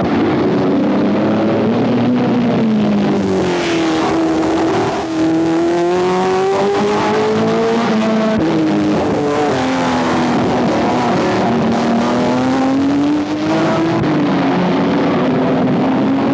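Ferrari sports cars lapping a race circuit, their engine notes climbing in pitch under acceleration and dropping off again several times as they shift and lift.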